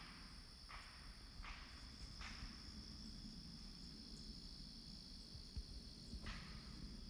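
Steady high insect drone with four short chirps, three in the first couple of seconds and one near the end, over a faint low rumble from the Boeing 737 flying high overhead.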